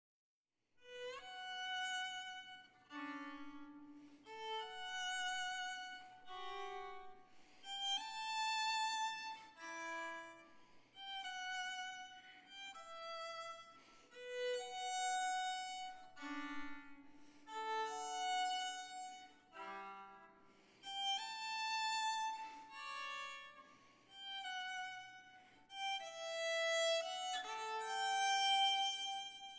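Violin playing a slow melody of held notes with vibrato, starting about a second in, sometimes sounding two notes at once.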